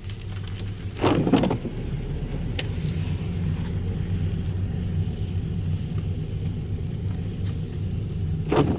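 A car running along the road, a steady low engine and road rumble, with two brief louder bursts about a second in and near the end.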